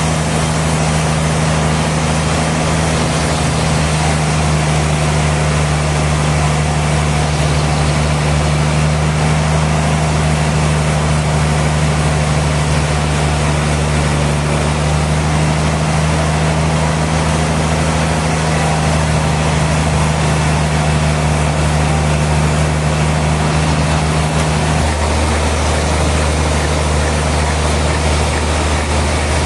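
Sawmill machinery running steadily: a constant low machine hum over a dense, even noise. The hum changes pitch about 25 seconds in.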